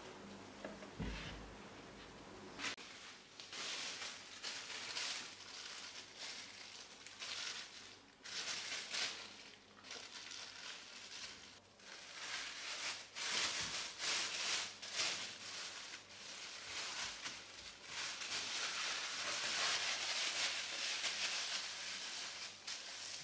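Thin plastic bag crinkling and rustling in irregular bursts as a ball of gingerbread dough is wrapped in it by hand, after a quieter start with a soft thump of the dough on the wooden board.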